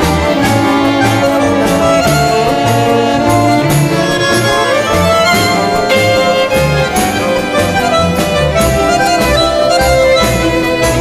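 Background music: sustained, reedy held notes over a bass line that moves about every half second, with a regular percussive beat.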